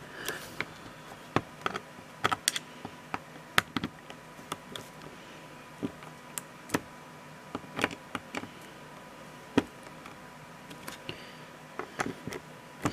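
Irregular light clicks and taps of a hand screwdriver working the screws of an aluminium airsoft gearbox shell, snugging them up by hand.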